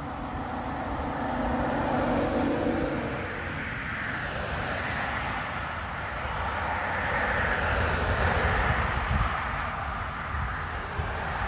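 Cars passing close by on a paved road, tyre and engine noise swelling and fading: loudest about two seconds in and again near eight seconds.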